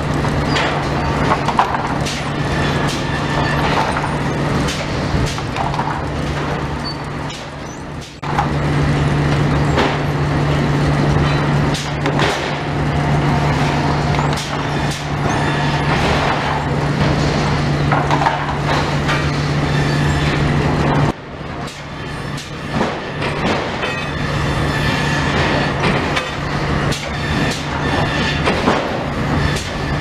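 Sawmill lumber-handling chain conveyors running: a steady machine hum under frequent clattering and knocking of boards and chains. The hum cuts out briefly about eight seconds in and again for a few seconds just past the twenty-second mark.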